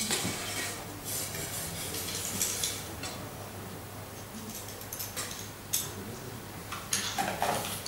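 Metal spoon clinking and scraping against a ceramic plate in scattered short taps while food is spooned on, over a steady low room hum.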